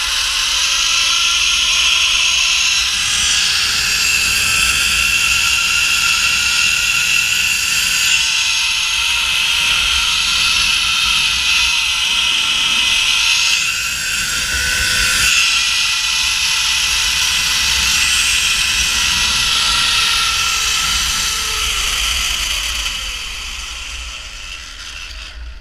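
Zip-line trolley pulleys running along a steel cable: a loud, steady whirring hiss with whining tones, which dies away with its pitch falling over the last few seconds.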